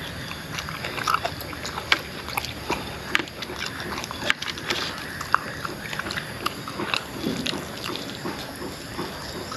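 A man chewing with his mouth full and smacking his lips as he eats grilled pork ribs by hand: irregular wet clicks and smacks.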